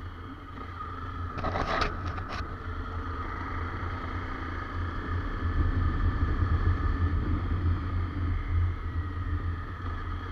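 Wind rumbling on the microphone of a moving Honda CRF250 Rally motorcycle, with its engine running steadily underneath, and a short rattle of noise about two seconds in.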